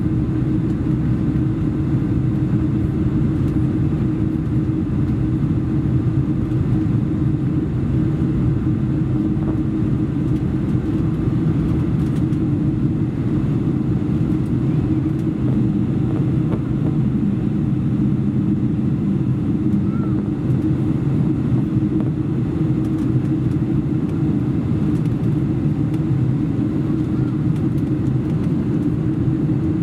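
Steady cabin drone of a Boeing 747-400 in flight, heard from a window seat over the wing: engine and airflow noise making a low, even hum.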